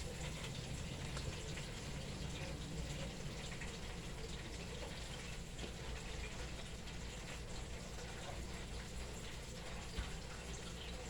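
Steady sizzle of chicken frying in hot oil, with an electric fan blowing.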